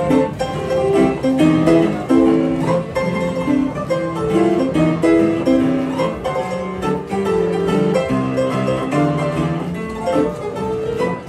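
White upright piano played live: a lively melody over a bass line, with notes struck in quick succession.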